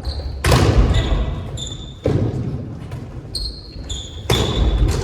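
A ball hitting a hard floor three times, about two seconds apart, echoing in a large hall, with short high squeaks in between.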